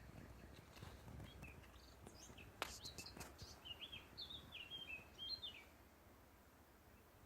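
A songbird singing faintly: a run of short chirping notes that bounce up and down, lasting about four seconds. A few sharp clicks come about two and a half to three seconds in, the first of them the loudest sound.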